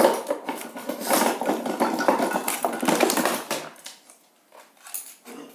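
Metal clattering and scraping, irregular and busy, for about three and a half seconds, then only faint handling sounds.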